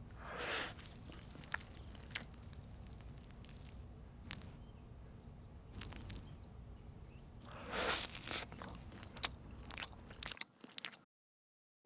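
Crisp, puffy crust of a baked Yorkshire pudding crackling as it is torn apart by hand, then crunching as it is bitten, with small sharp crackles in between.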